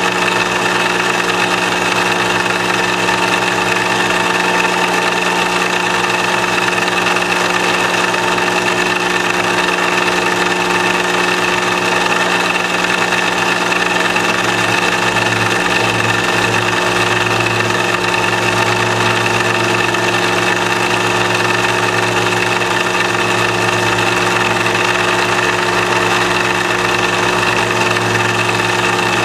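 Rose engine lathe at work: the overhead drive spins the drilling frame's carving bit as it cuts a pattern into the end grain of a piece of ash. A steady mechanical hum with a steady whine, a deeper hum joining about halfway.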